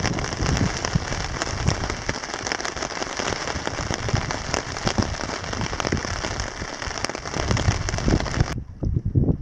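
Heavy rain pattering on a tarp shelter and the ground, a dense hiss of drops full of small taps. It cuts off suddenly near the end, giving way to wind on the microphone.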